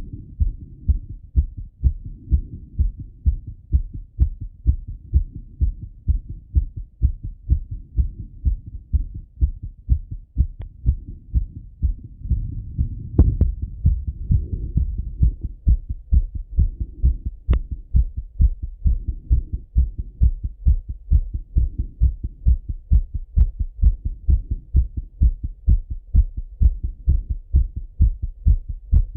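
A man's heartbeat heard through a Littmann stethoscope on his chest: a steady, quick run of low thumping beats, still raised after a run. About halfway there is one brief, louder knock.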